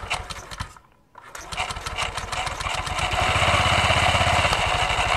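Honda scooter engine starting after a brief pause and settling to a steady idle about two seconds later, its exposed CVT drive belt and pulleys turning. The belt, new and not yet sprayed, makes little of its usual squeal because the engine is already warm.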